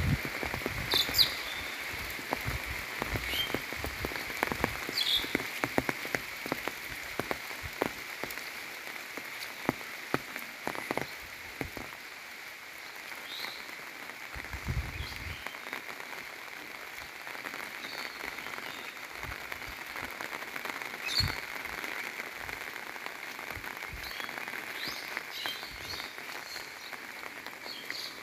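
Steady monsoon rain with a continuous chorus of frogs croaking, many small taps of drops, and short bird chirps every few seconds.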